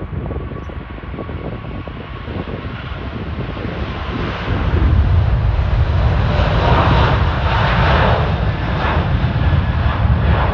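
Emirates Airbus A380's four jet engines at takeoff thrust during lift-off and climb-out: a loud, deep rumble that swells about four seconds in, with a ragged crackle on top.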